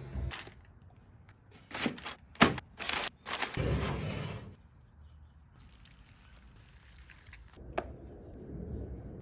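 Several sharp metal clanks and knocks, then a rushing scrape lasting about a second, as a grill lid is handled and a flat-top griddle plate is set down over the charcoal. One more sharp click comes near the end.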